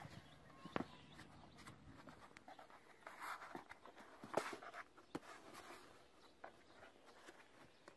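Faint scratching and scuffling of a puppy's and a kitten's paws and bodies on a cardboard box as they wrestle, with a few sharp taps about one, four and a half and five seconds in.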